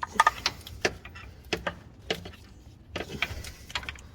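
Scattered clicks and light knocks of hands and a tool working at a stuck crankshaft position sensor and its wiring connector.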